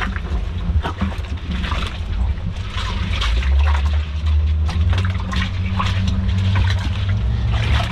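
Boat engine running steadily, with water splashing and sloshing around it. The engine's low hum grows stronger about three seconds in.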